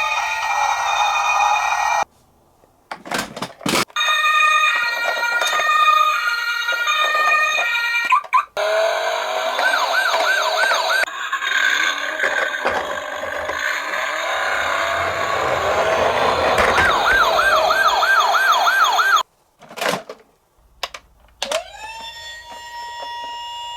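Toy police car's electronic siren sounding in several patterns: stepped alternating notes, then a fast warbling wail of about three wobbles a second. It cuts out briefly twice and ends on a single held tone.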